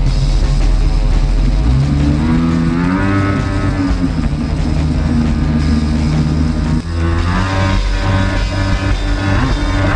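Stand-up Yamaha jet ski's two-stroke engine running under throttle, its pitch rising about two seconds in, dropping briefly near seven seconds, then rising again.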